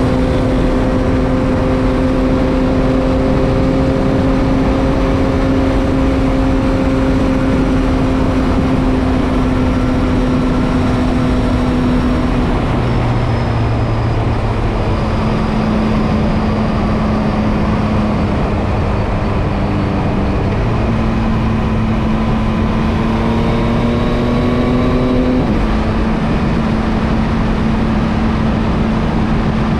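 Yamaha MT-09 three-cylinder engine running at highway speed under heavy wind noise on the microphone. Its note holds steady, dips about twelve seconds in, then climbs from about twenty-one seconds and drops sharply a few seconds later, like an upshift.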